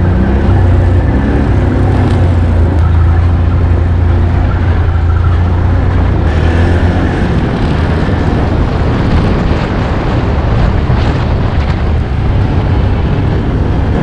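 Can-Am ATV engine running steadily as the quad is ridden, a low even drone that eases slightly for a moment past the middle.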